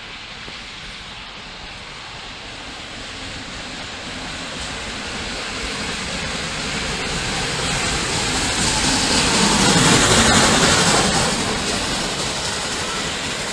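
LNER A4 Pacific steam locomotive and its coaches approaching and running through a station at speed, a rushing noise that builds to its loudest about ten seconds in as the engine passes, then eases as the coaches follow.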